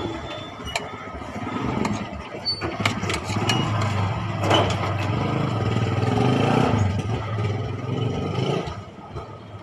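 A motorcycle engine running close by, getting louder over several seconds and then falling away sharply near the end. Light clicks of a spoon on a plate come through here and there.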